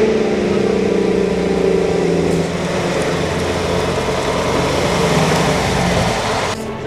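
Diesel engine of an old MAN fire engine running as the truck drives up and passes close by, its sound growing louder and broader as it nears, then cut off abruptly near the end.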